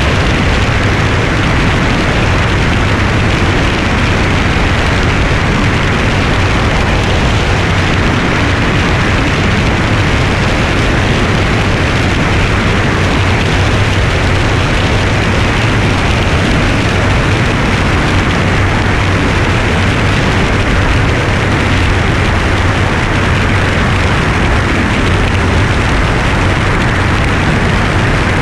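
Steady wind rush and buffeting on a camera mounted on the wing of a light single-engine plane in flight, over a constant low drone of the piston engine and propeller.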